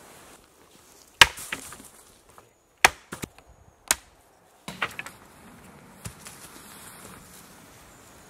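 Axe chopping hazel saplings on a wooden chopping block: three sharp strikes over about three seconds, then a few lighter knocks.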